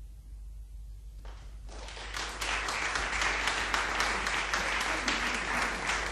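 Audience applause breaks out about a second and a half in and swells into dense, steady clapping.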